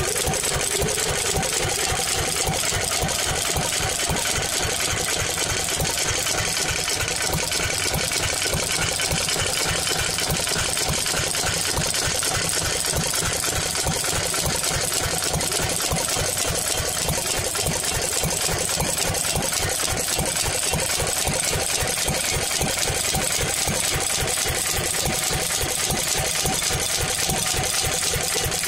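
Horizontal Pilter stationary engine running steadily, with a rapid, even beat of firing strokes that does not change.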